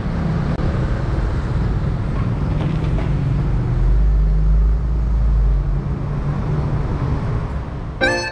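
A car engine running at low speed, with tyre and road noise, as the car creeps forward close by; the low rumble swells for a couple of seconds midway. Music starts just before the end.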